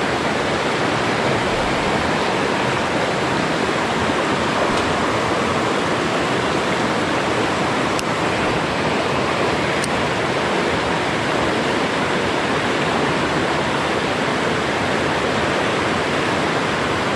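Rushing water of a rocky mountain-river rapid, a steady, even wash of noise. A few faint ticks sound about five, eight and ten seconds in.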